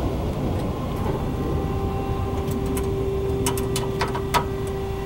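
A steady low mechanical rumble with a steady hum that comes in about a second and a half in. A few sharp clicks about three and a half to four and a half seconds in come from the battery charger and its plug being handled against the metal panel frame.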